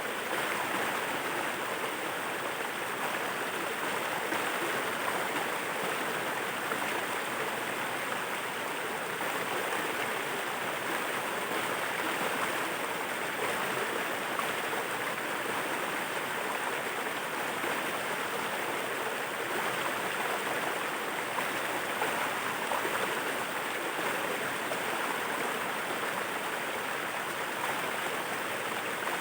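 Waterfall water rushing in a steady, even wash of noise.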